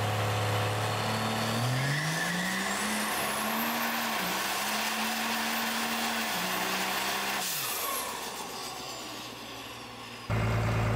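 Cummins diesel in a Dodge Ram pickup revving up under load on a chassis dyno. Its large single turbocharger whines, the whine rising steeply, then holding at a high pitch. After about seven seconds the engine and turbo whine fall away, and near the end the sound cuts abruptly to a steady, lower engine tone.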